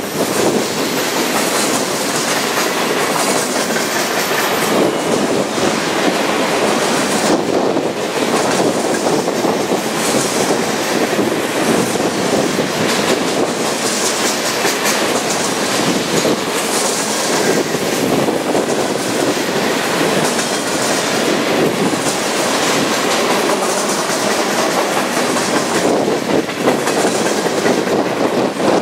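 Empty centerbeam flatcars of a freight train rolling past at speed: steel wheels clicking over the rail joints in a steady, loud rattle.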